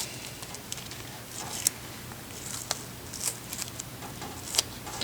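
Scattered small clicks and light scraping of tools and metal parts being handled while a Corvair transaxle is taken apart, with a few sharp ticks.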